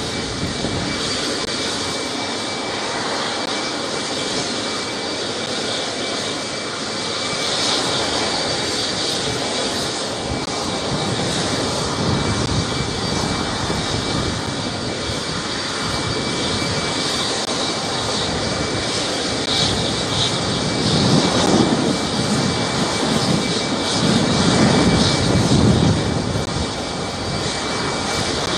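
Antonov An-124 cargo jet's turbofan engines running on the ground: a steady jet roar with a thin high-pitched turbine whine. A lower rumble swells about 21 seconds in and again a few seconds later.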